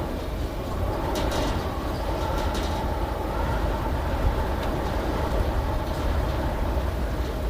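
A steady low mechanical rumble of a vehicle running, with a few brief high rattles or squeals over it.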